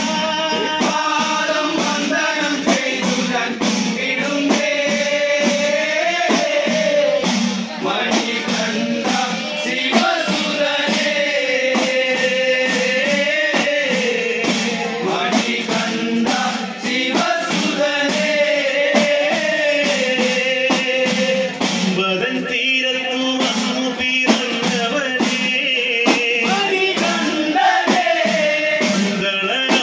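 A male group sings a Kavadi chinthu, a Malayalam devotional song to Murugan, with a lead voice and a chorus. Steady strikes of handheld percussion keep an even beat under the melody.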